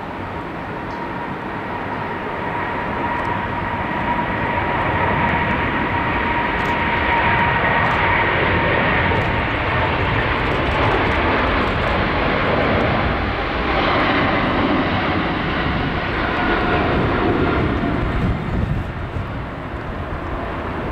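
Boeing 777's twin jet engines running at high power on the runway: a loud rushing roar with a steady whine that swells over the first few seconds. The whine drops a little in pitch past the middle as the aircraft goes by, and the roar eases slightly near the end.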